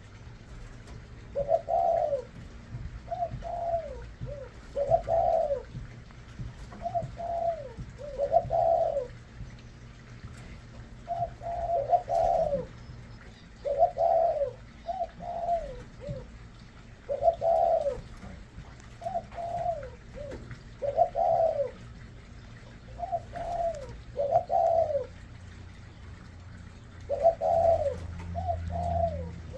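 Spotted dove cooing: a low phrase of two or three notes, repeated over and over every couple of seconds.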